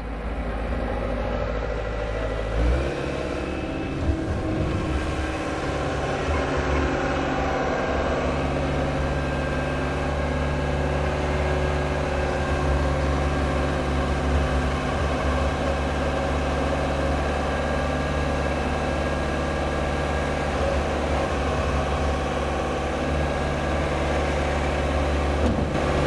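Bobcat 863 Turbo skid steer's diesel engine running steadily. Its note shifts once, about three seconds in, and then holds.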